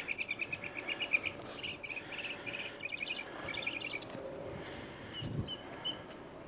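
Birds chirping in quick rattling trills, then a few separate higher chirps near the end, with a soft low thud about five seconds in.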